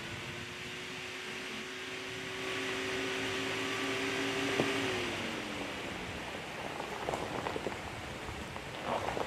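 Ford Transit's twin-turbo V6 EcoBoost engine running at a steady pitch as the van crawls over a rocky trail; the pitch eases down about five seconds in. Near the end the tyres crunch and click over loose stones.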